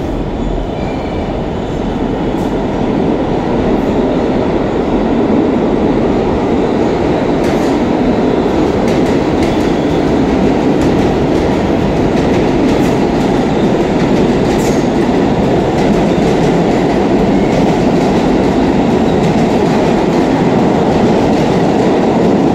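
Subway train running through the station: a loud steady rumble that builds over the first few seconds and then holds, with faint clicks here and there.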